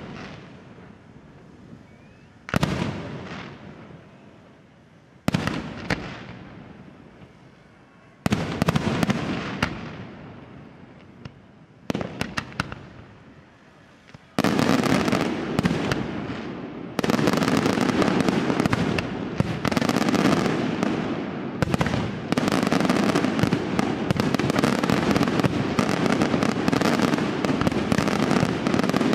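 Aerial firework shells bursting one at a time, about every three seconds, each bang trailing off in a fading echo. About halfway in they give way to a dense, continuous barrage of rapid bursts and crackle that grows heavier a few seconds later.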